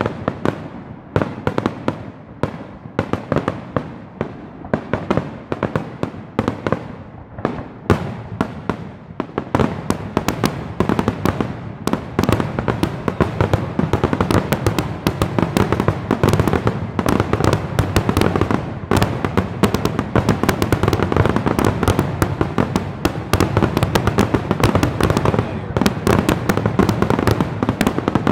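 Aerial fireworks display: bangs and crackles of shell bursts, spaced apart at first, then about ten seconds in a dense, almost continuous barrage of reports.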